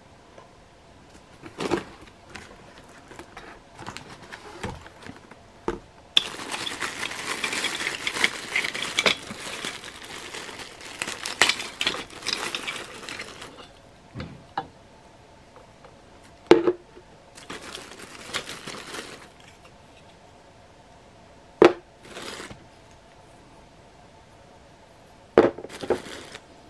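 Unpacking a cardboard box stuffed with crumpled newspaper and bubble wrap: a long stretch of rustling and crinkling, with a few separate sharp clacks before and after as hard plastic toy parts are picked out and handled.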